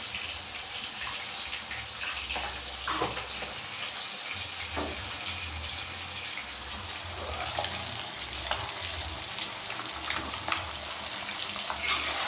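Hot cooking oil sizzling in a wok, a steady hiss with scattered small pops and crackles, growing a little louder near the end.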